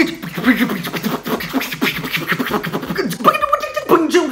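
A man imitating a sound with his mouth, beatbox-style: a fast stream of pitched vocal sounds that slide up and down, mixed with sharp mouth clicks, starting abruptly.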